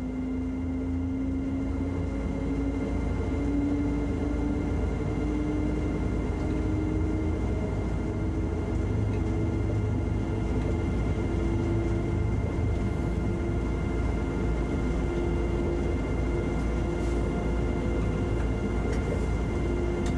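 Train running at low speed, heard from inside its driver's cab: a steady rumble with a whine that slowly rises in pitch as it gathers speed.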